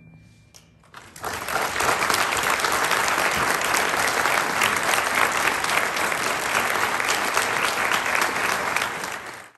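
Audience applause breaking out about a second in, just as the wind band's last note dies away, then holding steady and cutting off abruptly near the end.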